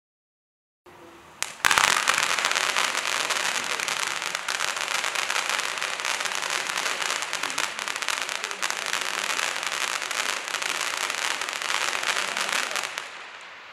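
Firework fountain, the opening stage of a Celtic Fireworks 'Gender Reveal - Boy' fountain-into-barrage cake, burning with a steady crackling hiss. It starts with a sharp crack about a second and a half in and dies down near the end.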